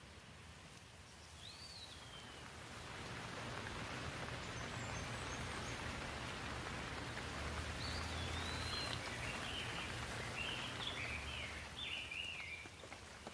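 Rain falling steadily, swelling over the first few seconds and easing off near the end. A bird chirps once about a second and a half in, then gives a run of quick chirps in the second half.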